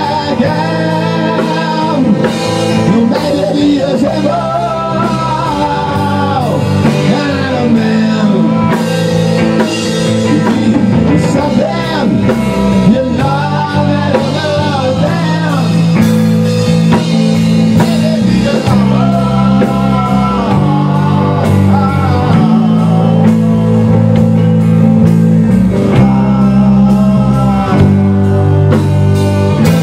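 A rock band playing live: electric guitar over a drum kit, with a lead line that bends up and down in pitch, loud and continuous.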